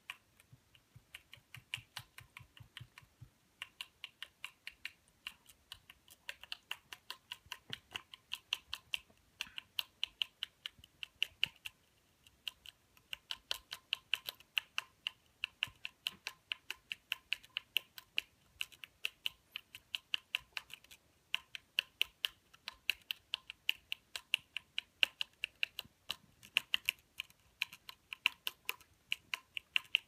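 Rapid, uneven clicking, several a second: a finger tapping the metal tip of a small-animal water bottle's leak-proof drinking nozzle, as an animal's licking would, to let water out into a bowl.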